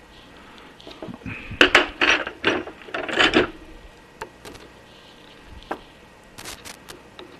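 Small steel screws and a screwdriver clicking and scraping against the Atlas lathe's apron casting as the screws are fitted: a loud cluster of clatter from about a second and a half in, then a few lighter ticks and a quick run of clicks near the end.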